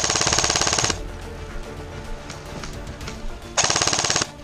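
ASG CZ Scorpion Evo 3 A1 airsoft electric gun firing two full-auto bursts close by: a rattle of about a second at the start and a shorter one near the end.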